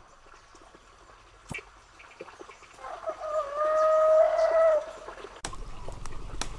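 A rooster crowing once: a single drawn-out call about two seconds long, starting around three seconds in.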